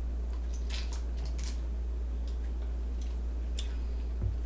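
A woman drinking from a plastic bottle, with faint sips, swallows and small mouth clicks scattered through, over a steady low hum.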